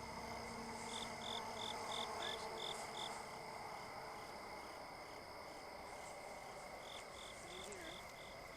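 Crickets and other night insects: a steady high trill under runs of short, evenly spaced chirps, about three a second, one run about a second in and another near the end.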